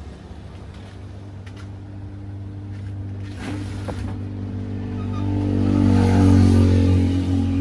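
A steady low hum made of several evenly spaced tones, swelling louder about two-thirds of the way through and easing off near the end, with a few faint clicks.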